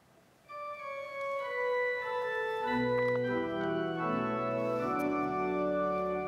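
Organ playing a hymn introduction, beginning about half a second in with sustained melody notes; lower notes join about two and a half seconds in.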